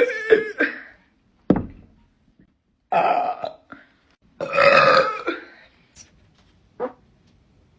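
A woman burping several times: a short burp about one and a half seconds in, another about three seconds in, and a longer, louder belch lasting about a second at around four and a half seconds.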